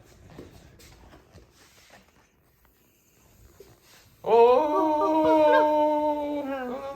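A long, steady-pitched cry, held for nearly three seconds, starting about four seconds in after a few faint clicks.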